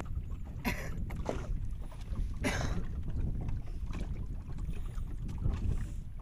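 Wind rumbling on the microphone over water lapping against a small fishing boat, with two brief noisy sounds about one and two and a half seconds in.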